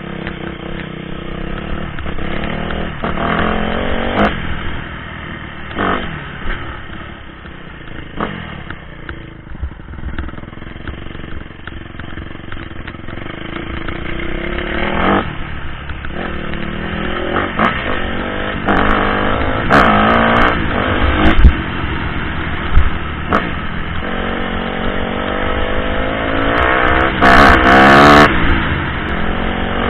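Honda CRF250 dirt bike's single-cylinder four-stroke engine revving up and down repeatedly as the rider works the throttle through the gears on a rough trail, with sharp knocks and rattles from the bumps.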